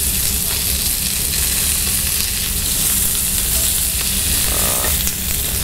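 Red mullet fillets searing in oil in a hot pan: a steady frying sizzle over a low steady hum.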